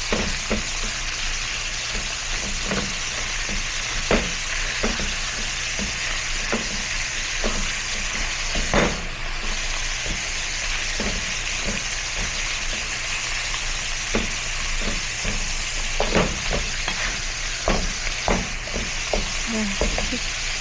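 Meat frying in a pan with a steady sizzle, stirred with a utensil that knocks and scrapes against the pan at irregular moments.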